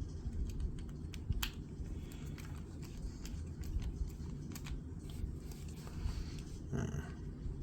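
Scattered small clicks and taps of metal flashlight parts being handled and fitted back together during reassembly, over a steady low hum.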